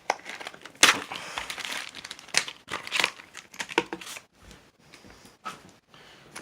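Blind-box toy packaging being torn open and crinkled by hand, in a run of irregular crackling tears and rustles, the loudest about a second in.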